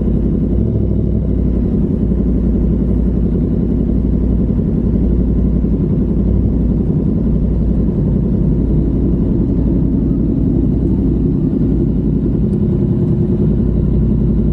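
Yamaha MT-10's 998 cc crossplane inline-four running steadily at idle through an SC Project 70 mm carbon-titanium exhaust, with no revving.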